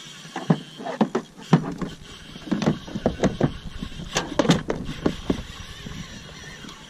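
A run of irregular knocks and clatters from rods, reel and gear being handled on a fishing kayak, busiest in the middle seconds.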